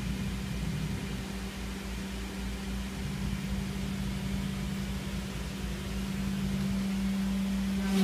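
Shapeoko CNC router's spindle running steadily as its bit carves lettering into a wooden board, a constant hum with a low rumble underneath.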